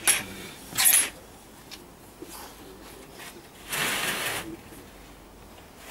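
Handling noises from working a manual tile cutter and breaker on a long scored porcelain tile: a click at the start, a short scrape about a second in, and a longer scrape about four seconds in.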